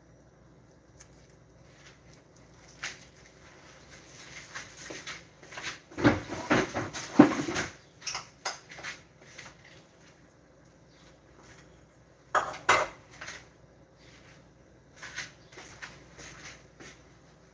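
Kitchen clatter of dishes and utensils being handled: scattered knocks and clinks, with a busy run about six to eight seconds in and shorter bursts around twelve and fifteen seconds in.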